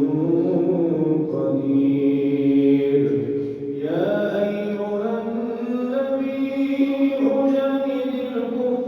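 A male reciter chanting the Quran in melodic tajweed style, holding long drawn-out notes. About four seconds in, his voice rises to a higher held pitch.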